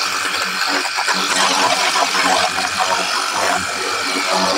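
Xenon HPW2160 cordless pressure washer running, spraying a jet of water onto a car's bodywork to rinse it: a steady hiss of water over the hum of the battery-powered pump motor.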